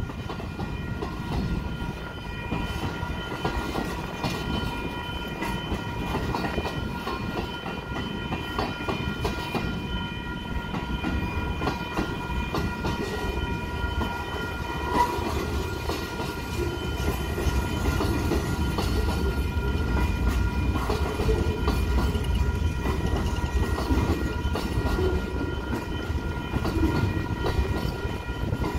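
Freight cars of a long train rolling past close by: a steady rumble of steel wheels on the rails, with clickety-clack and rattle from the cars.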